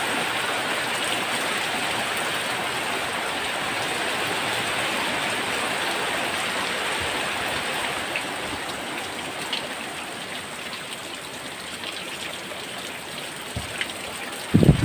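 Heavy rain falling steadily, a continuous even hiss. Just before the end a short, loud low-pitched buffet of wind hits the microphone.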